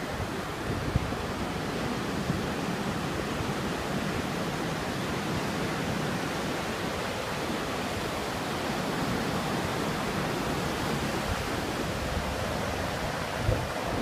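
Sea surf: small waves breaking and washing up onto a sandy beach and against a rock breakwater in a steady rush, with occasional low buffets of wind on the microphone.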